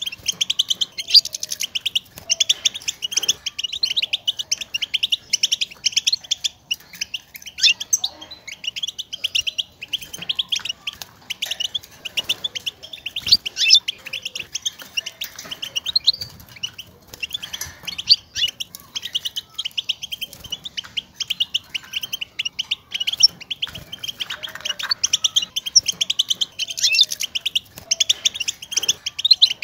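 European goldfinch twittering: rapid runs of high, chirping call notes with brief pauses between them. These are the contact calls goldfinches use to call to one another.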